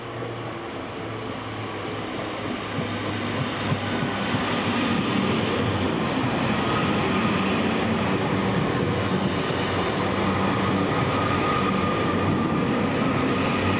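Northern Class 331 electric multiple unit running along the station platform. It grows louder over the first few seconds as it nears, then holds steady as the carriages pass, with a steady hum under the rolling noise.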